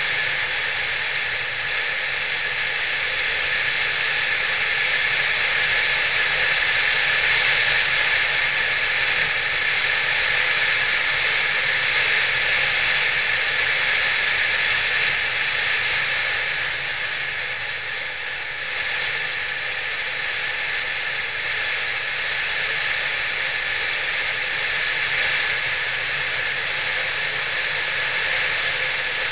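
Motorcycle riding at steady road speed: a steady rush of wind over the camera microphone with the engine running underneath, easing briefly about two-thirds of the way through.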